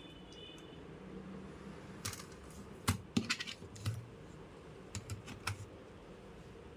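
Scattered light clicks and taps, bunched about two to four seconds in and again around five seconds in.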